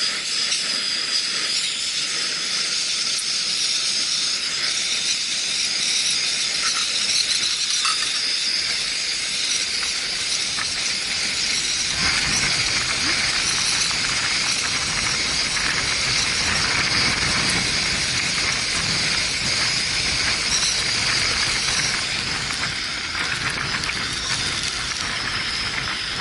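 A backpacking stove's burner hissing steadily at full flame. About halfway through, gusts of wind add a low rumble on the microphone.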